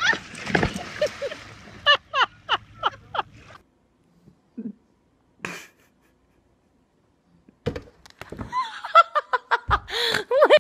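A dog splashes into river water off a paddleboard, followed by a person laughing in short, evenly spaced bursts. After a few seconds of near quiet, more laughter comes near the end.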